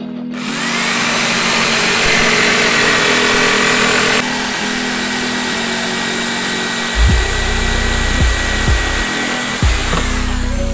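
Electric jigsaw running steadily, its blade sawing through MDF board along a circle, with a constant motor whine.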